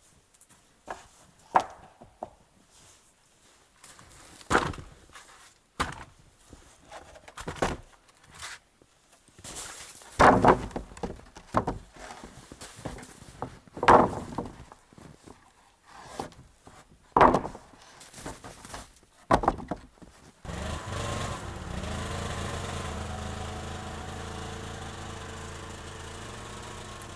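About a dozen irregular heavy wooden thunks, spaced one to three seconds apart. About twenty seconds in, a steady engine hum takes over.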